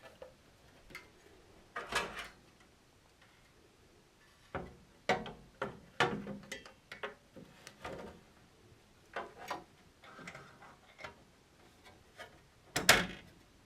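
Scattered clicks and light knocks of a computer circuit board and its parts being handled and set into a metal computer case. The loudest knock comes near the end.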